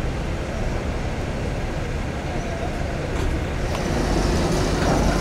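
Steady low rumble of engines and traffic around a ferry harbour. About four seconds in it grows louder, with a steady hum from the ferry alongside.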